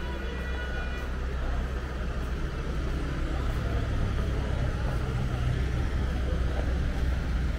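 Street traffic: the steady low rumble of vehicle engines, growing heavier about halfway through as a vehicle comes close. A brief high steady tone sounds in the first second.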